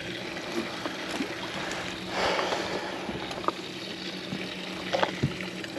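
Small waves lapping and sloshing against a boat's hull, with a louder swash about two seconds in and a few light knocks, over a faint steady hum.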